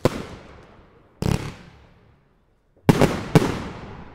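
Svea consumer fireworks going off: a sharp bang, then a short rattle of several bangs about a second later, then two more bangs close together near the end. Each one trails off in a fading echo.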